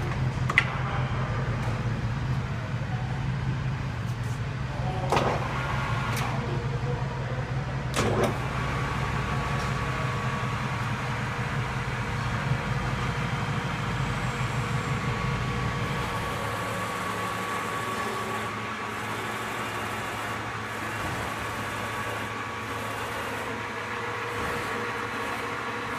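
TRAK TRL 1745P lathe running with a steady low hum and a thin high whine. A few sharp clunks come in the first eight seconds, and about sixteen seconds in the low hum falls away while the whine carries on.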